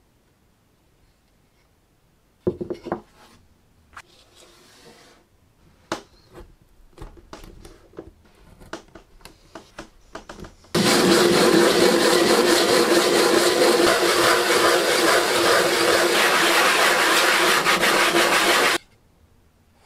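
Wooden hand-saw handle rubbed back and forth on a sheet of sandpaper laid flat on the bench, a loud steady rasp lasting about eight seconds that stops abruptly near the end. Before it come scattered light taps and knocks as the sandpaper is set out.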